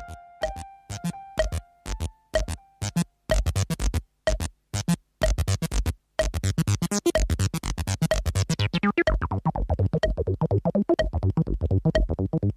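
Electronic music: short, sharp synthesizer pulses, sparse at first and growing dense and rapid from about halfway through.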